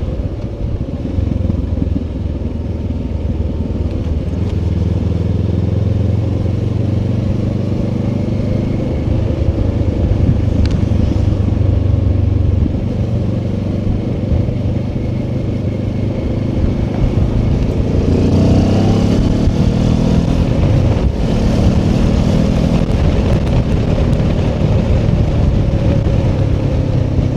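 Benelli TRK 702 X motorcycle, a parallel-twin, running on the road. The engine and exhaust hold a steady note, then rise in pitch about eighteen seconds in as it accelerates.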